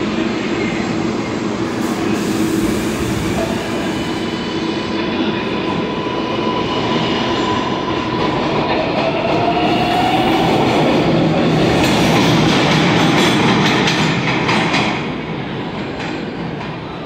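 R142A subway train pulling out of the station. Its motor whine rises in pitch as it accelerates, then the wheels clack over the rail joints as the cars pass at their loudest, and the sound falls away near the end as the train leaves.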